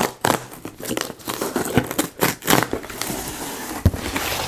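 Cardboard shipping box being opened and its packing handled: a run of sharp crackles and scrapes, then a steadier crinkling rasp over the last second and a half.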